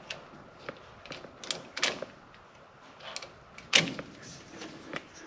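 Scattered clicks and knocks of hands and tools working an A/C hose fitting into place; the loudest knock comes nearly four seconds in.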